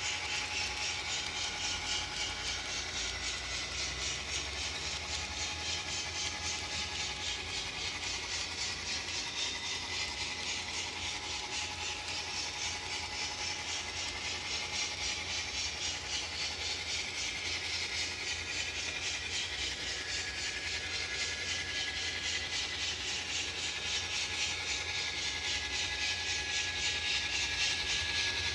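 Model train locomotive running on track, its DCC sound decoder playing a hissing, evenly pulsing locomotive sound through its small speaker, with a faint steady motor whine. It grows slightly louder near the end.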